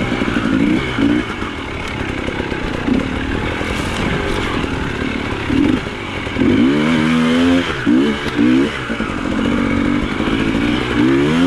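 KTM 300 two-stroke dirt bike engine running under hard, choppy throttle, its pitch climbing and falling again and again, with a run of quick revs about two-thirds of the way through.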